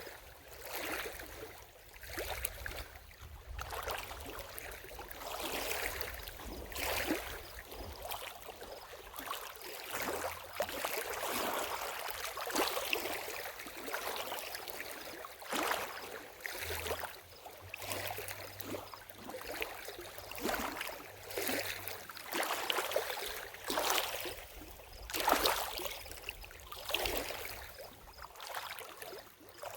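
Lake water lapping: small waves splashing in uneven washes every second or two.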